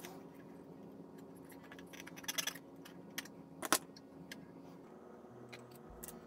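Faint, scattered clicks and light taps from fingers handling thread on a plastic model ship, with a small cluster of clicks about two seconds in and a sharper single click a little after the middle.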